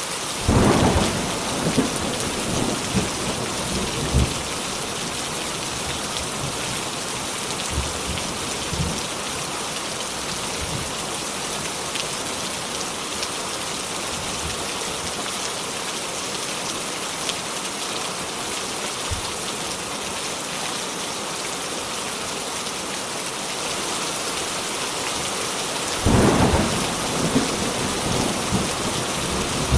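Steady rain hissing throughout, with two peals of thunder: a sharp clap about half a second in that rumbles on for a few seconds, and another near the end.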